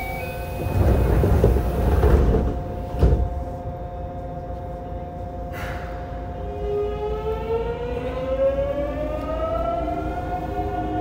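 Mitsubishi GTO-VVVF inverter and traction motors of a Yokohama subway 3000A car pulling away from a standstill: a whine with several pitches climbing together from about six seconds in, over a steady hum. Earlier, a loud low rushing noise and a single knock about three seconds in.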